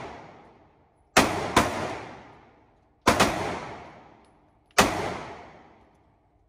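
Pistol shots in an indoor range: a quick pair about a second in, another close pair about three seconds in, and a single shot near five seconds. Each shot is followed by a long echoing decay.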